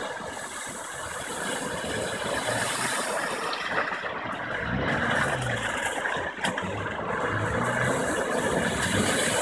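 Subaru SUV engines running as the cars drive through shallow muddy floodwater, with water splashing and spraying from the wheels. The sound grows louder toward the end as a car approaches.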